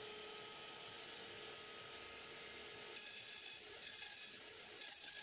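Faint, steady running of a Mafell router and a corded Black & Decker drill, the drill spinning a small hardwood column while the router's spiral upcut bit rounds it. One steady tone drops out about three seconds in.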